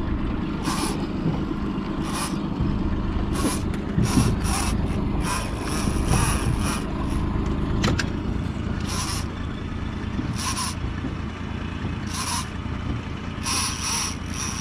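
A fishing reel working in short, irregular bursts every second or two while a hooked fish is fought on a hard-bent rod, over a steady low rumble.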